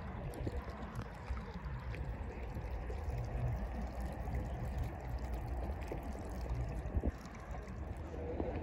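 Steady riverside noise of moving water, with a low uneven rumble underneath and a single sharp knock about seven seconds in.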